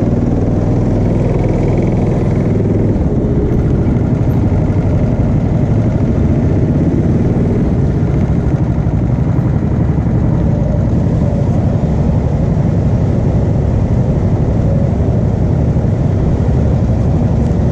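Go-kart engine running steadily as the kart drives around an indoor track, picked up by a camera mounted on the kart.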